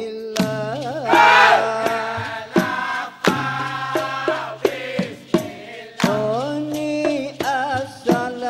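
Dikir barat: a man sings a solo line into a microphone in a wavering, ornamented melody. Under it run a steady low tone and sharp percussion strikes, and there is a louder swell about a second in.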